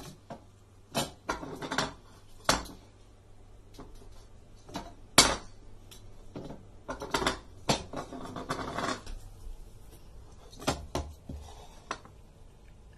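A small ceramic bowl clinking, knocking and scraping on a wooden floor as it is pushed about, in scattered sharp knocks with one loud clack about five seconds in and a busy run of clinks a couple of seconds later.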